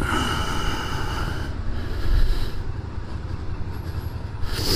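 Suzuki Gladius 650's V-twin engine running at low speed, a steady low rumble heard from a recorder inside the rider's helmet. A faint whine sits over it in the first second or so, and a short loud rush of hiss comes near the end.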